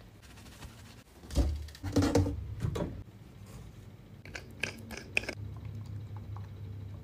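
Close handling noises: a few loud rustling knocks between about one and three seconds in, then a quick run of light clicks a little past four seconds, over a low steady hum.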